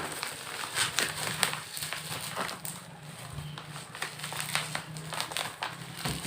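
Product packaging being handled: crinkling and rustling with scattered small clicks and knocks, over a low steady hum.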